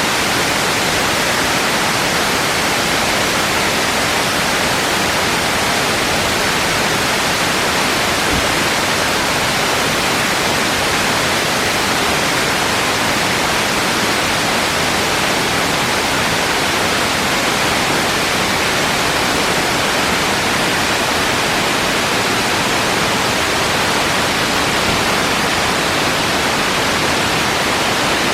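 Large waterfall crashing steadily onto rock, a dense unbroken rush of water about 60 metres high, split into several falls.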